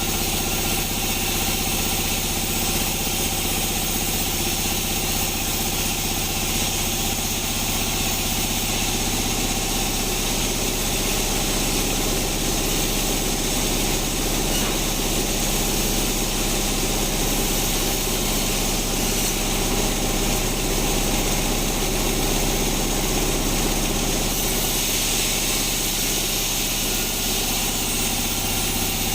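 A sawmill band saw and its drive motor running steadily, a constant machine drone with several fixed tones.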